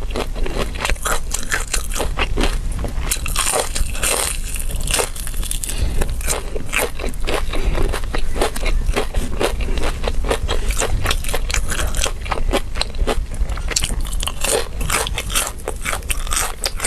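Close-miked crunchy biting and chewing of crispy fried food: a dense, continuous run of crackles and crunches.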